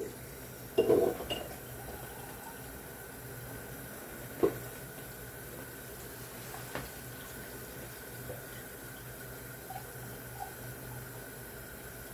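Water running steadily into a cooking pot to fill it for soup, with a clatter of the pot about a second in and a single sharp knock near the middle.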